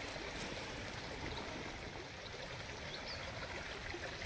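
A river running, a steady even rush of water.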